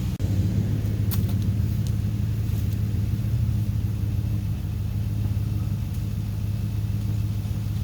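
A vehicle engine idling with a steady low hum. A couple of faint ticks come about a second in.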